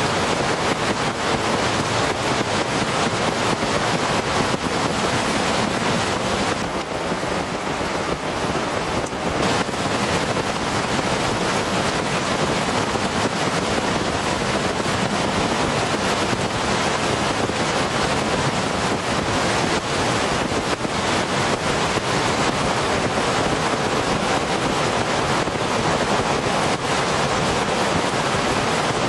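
Heavy rain pouring steadily in a dense, even hiss.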